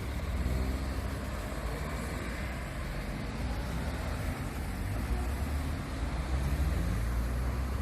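City street ambience: steady road traffic noise with faint voices in the background.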